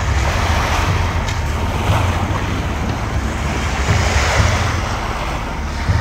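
Small waves breaking and washing up on a sandy beach, swelling and ebbing, with wind buffeting the microphone in a low, uneven rumble.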